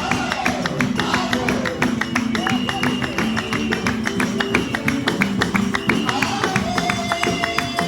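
Upbeat music with plucked guitar over a fast, steady percussive beat.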